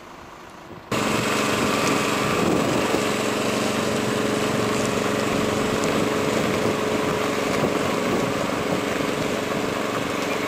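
Heavy truck's diesel engine running at a steady pitch, coming in suddenly about a second in.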